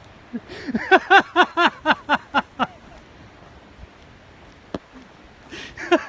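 A man laughing hysterically in rhythmic bursts, about four a second, that die away after a couple of seconds and start up again near the end. A single sharp click falls in the quiet stretch between.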